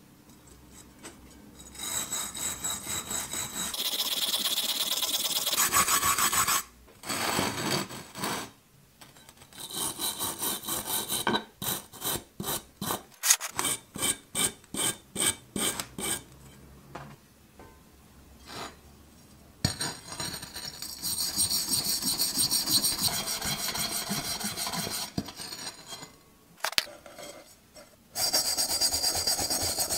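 Small hand wire brush scrubbing rust off a cast iron pan. It goes in bouts of fast back-and-forth strokes with short pauses between them. In the middle there is a run of separate, distinct strokes at about two a second.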